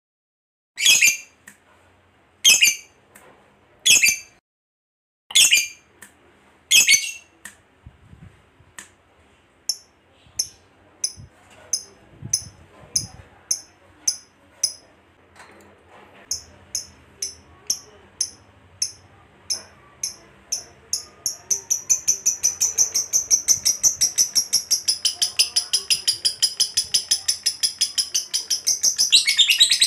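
Lovebird calling: sharp, loud calls about every second and a half, then a run of quieter, evenly spaced chirps. From about two-thirds of the way in, these turn into a fast, continuous chattering trill, the long 'ngekek' prized in a singing lovebird, which grows louder near the end.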